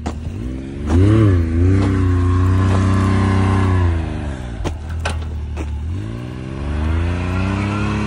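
Side-by-side UTV engine revving hard as the machine plows through deep snow: it revs up about a second in, holds high, eases off around four seconds, then builds again. A few sharp clacks are heard over it.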